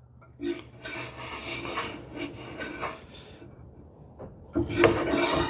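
Hand plane shaving the edge of a wooden drawer side with a finely set iron: a few light strokes, a short pause, then a louder, fuller stroke near the end. The planing trims the drawer sides' lower edges flush, taking very thin shavings.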